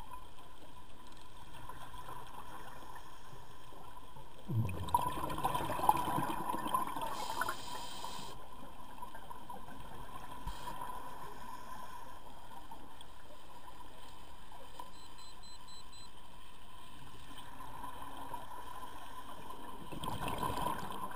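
Underwater ambience through a camera housing: a steady hiss with a constant hum. A rush of scuba exhaust bubbles comes about four and a half seconds in and lasts a few seconds, and a smaller one comes near the end.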